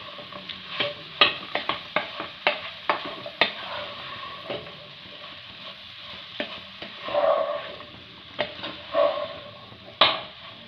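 Wooden spatula stirring chopped mango pickle in hot sesame oil and spices in a pan: a steady sizzle with irregular scrapes and knocks of the spatula against the pan, the sharpest knock near the end.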